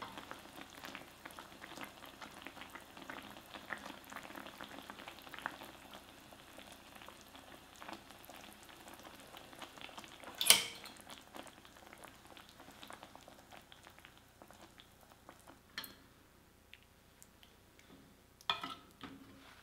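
Eggplant simmering in soy-and-dashi broth in a frying pan: a steady bubbling and crackling, with a single sharp knock about halfway through. The bubbling fades out about two thirds of the way in, and two lighter clicks follow near the end.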